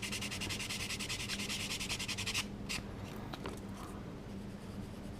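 Sanding pad rubbed by hand over cured light-curing putty on a resin model part, in quick, even back-and-forth strokes that stop abruptly about halfway through, followed by a few faint clicks.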